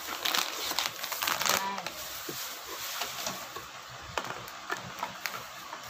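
Plastic food packets crinkling as hands rummage in a cardboard box, followed by scattered light clicks and knocks of tin cans being shifted.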